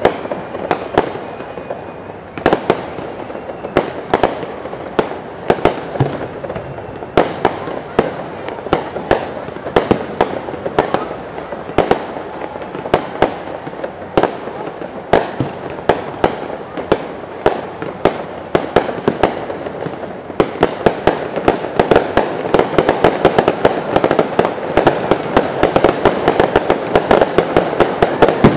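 Aerial fireworks shells bursting in a run of sharp bangs, a second or so apart. About twenty seconds in, the bursts come much faster, in a dense rapid barrage.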